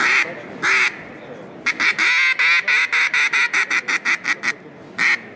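Double-reed duck call with an acrylic sound block and a stabilized-wood body, blown by mouth: two quacks, then a fast run of about fifteen short quacks, then one more quack near the end. The tone is light, with a hunter's rasp.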